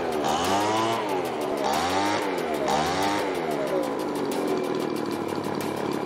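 Echo PB1000 leaf blower's two-stroke engine revved up and down about three times on the throttle trigger, then settling to a steady idle about four seconds in. It picks up quickly on the throttle, running cleanly after its carburettor high and low screws were adjusted.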